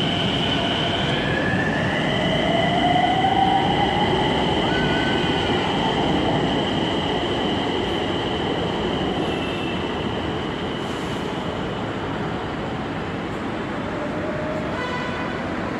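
Nagpur Metro electric train pulling out of the station: a steady high whine over a running rumble, with a tone rising in pitch as it speeds up a few seconds in, then easing off as the train moves away.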